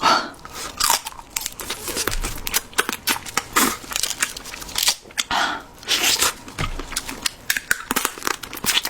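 Close-miked eating of seafood ramen: crunchy bites and wet chewing, with many short sharp clicks in quick, irregular succession.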